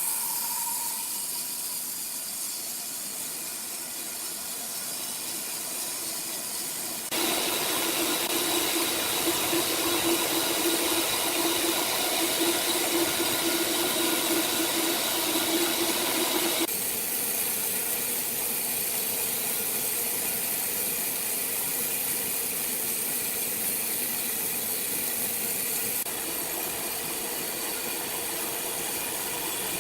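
Steady machinery noise with a constant hiss. It changes abruptly about seven seconds in, when a steady hum comes in, and again near seventeen seconds, when the hum drops away.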